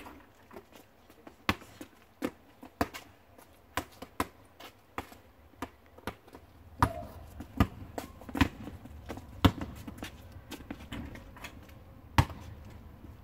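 Basketball bouncing on an asphalt driveway during one-on-one play: sharp, irregular bounces about a second apart, coming closer together and louder about halfway through.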